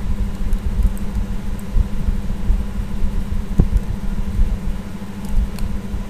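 Steady low rumbling hum, with one sharp click about three and a half seconds in and a couple of faint ticks near the end.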